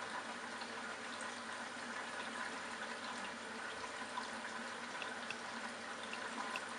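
Water running steadily into a Candy Bianca washing machine as it takes in water early in a delicates cycle, with small splashing ticks.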